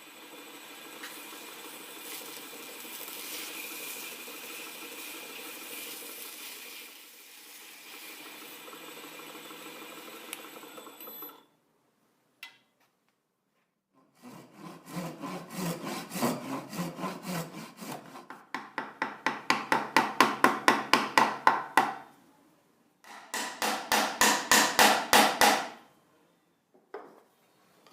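Hand tool rubbing on wood: a steady scraping for about ten seconds, then after a short pause two runs of quick back-and-forth strokes, about five a second.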